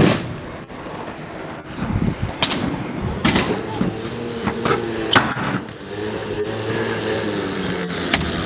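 A BMX bike knocking and landing on concrete, several sharp knocks, the loudest about five seconds in. From about three and a half seconds in, a motor scooter's small engine hums steadily underneath.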